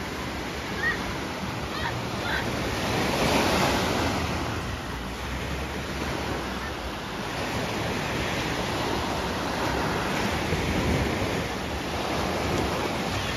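Small sea waves breaking and washing in close by, a steady surf noise that swells and eases.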